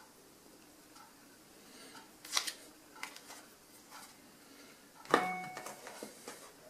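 Faint handling sounds of an iPhone 5s being turned over in the hand: a few scattered light clicks and taps from about two seconds in, and a slightly louder brief rub with a short hum in it about five seconds in.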